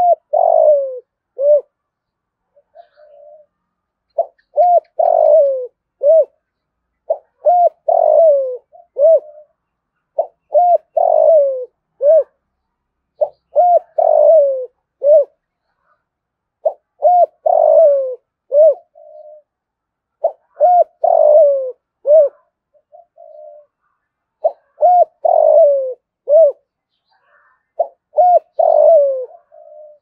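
Spotted dove cooing: the same phrase of a few short coos ending in a longer, falling coo, repeated about every three and a half seconds. This is the male's advertising coo, the kind of call played to draw in wild spotted doves.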